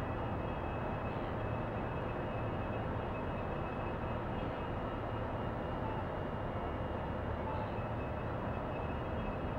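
Steady low rumble of a large hopper dredger's engines and propellers as the ship moves slowly under way, with a faint steady high whine on top.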